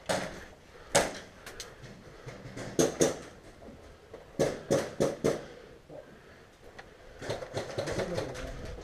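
Scattered sharp knocks and taps: a single knock about a second in, a close pair near three seconds, four evenly spaced at about three a second near the middle, and a quick cluster of lighter taps near the end.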